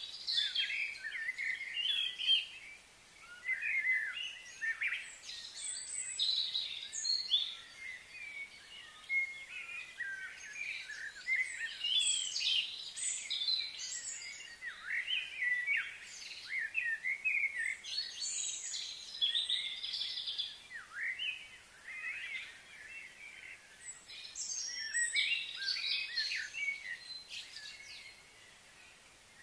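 Birds chirping and calling in quick, overlapping high notes, with a few short lulls.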